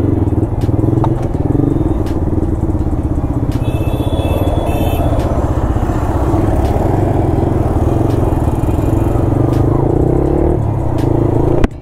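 Yamaha MT-15's single-cylinder engine running steadily while riding, heard through a helmet mic with wind noise. It cuts out abruptly just before the end.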